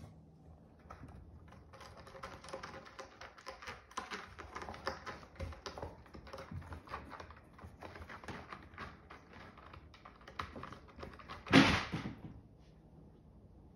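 Kittens' claws scratching and scrabbling on cardboard: a long run of quick, irregular scratchy clicks, with one loud, brief scrape near the end.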